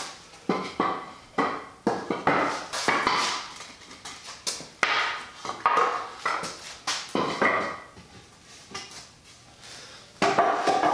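Cut lengths of 2x4 lumber knocking and clattering as they are set down on a concrete floor and against one another: a string of hollow wooden knocks with short ringing, fewer toward the end.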